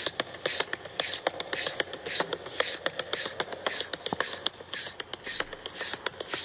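Vegetable peeler scraping down a raw carrot in quick, even strokes, about two a second. Each stroke is a short rasp, with small sharp ticks between the strokes.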